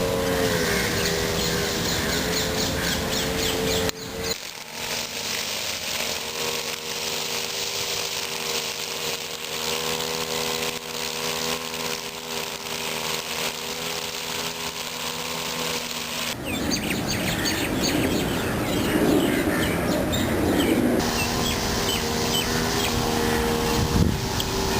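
Outdoor garden ambience: birds chirping over a steady mechanical hum, changing abruptly twice.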